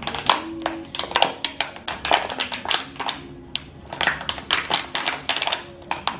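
Thin plastic water bottle being squeezed and released by hand, crackling with quick irregular snaps and clicks, as it is used to suck an egg yolk away from the white.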